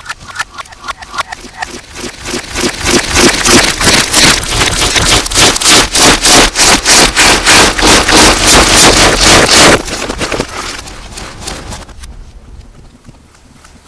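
Slime being squished and worked close to the microphone, with a distorted sound: a fast, even run of sticky squelching clicks. It builds a couple of seconds in, is very loud for several seconds, then stops abruptly and trails off softly.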